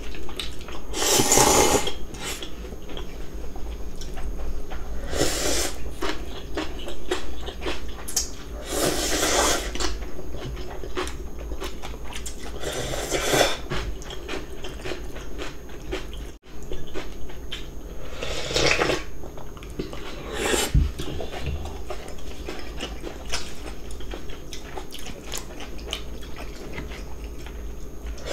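Cold radish-kimchi noodles in broth being slurped in about six separate slurps of a second or so each, with chewing and light clinks of cutlery against a bowl between them.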